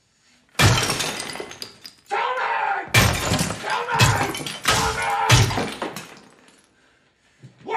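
Claw hammer smashing a porcelain washbasin: four heavy blows, each with a crack and a spray of breaking porcelain that trails off.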